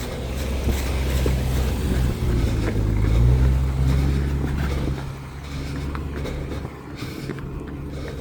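A motor vehicle's low engine rumble swelling as it passes close, loudest about three and a half seconds in, then fading away.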